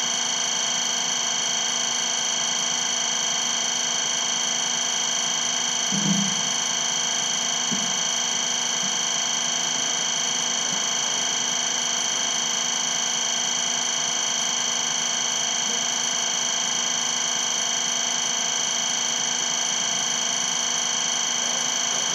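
Steady, high-pitched electrical whine and hum made of several fixed tones, level throughout, with one dull thump about six seconds in.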